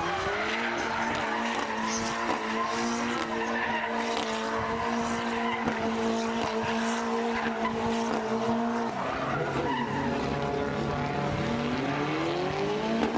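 Mitsubishi Lancer Evo engine held at steady high revs while the four-wheel-drive car spins donuts, its tyres scrubbing and squealing on the tarmac. About nine seconds in the revs drop, then climb again in a rising whine near the end.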